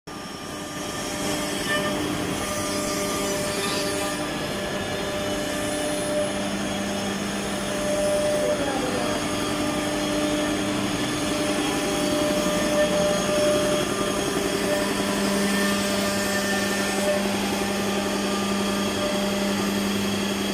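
CNC lock-hole and hinge drilling machine for wooden doors running, with its dust extraction: a steady mechanical hum and whine with several held tones over a hiss. A low hum grows louder about three-quarters of the way through.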